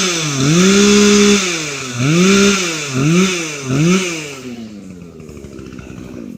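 Gasoline chainsaw engine revved up and down several times, once held at high revs for about a second, then easing back toward idle.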